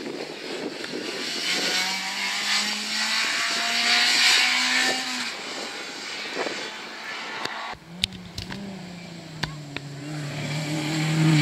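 A rally car's engine revving hard as it passes at speed, its note climbing and then dropping off about five seconds in. After a sudden break and a few sharp clicks, a second rally car, a Talbot Samba, approaches with its engine note growing louder near the end.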